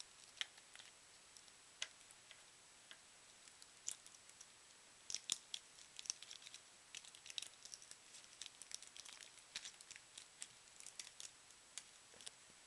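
Faint crinkling and crackling of Mamba fruit chew wrappers being handled and peeled off, in scattered sharp crackles that bunch together about five seconds in and again a few seconds later.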